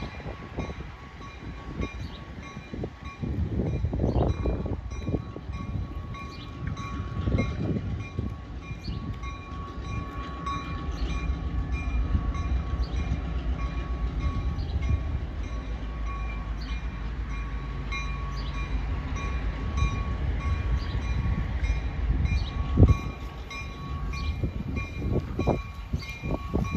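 Diesel locomotive running as it slowly approaches along the track, its engine a steady low rumble that builds and holds, with one loud sharp knock near the end.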